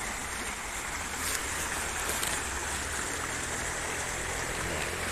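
River water flowing, a steady rushing hiss.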